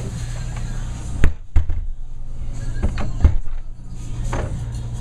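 A few sharp knocks or thumps over a steady low hum: a pair about a second and a half in, another pair about three seconds in, and a softer one near the end.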